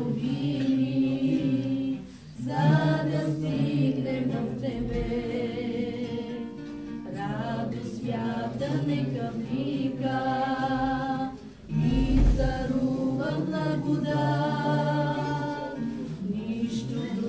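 A small congregation, mostly women's voices, singing a hymn together in long sustained phrases, with short breaks for breath about two seconds in and again near the middle.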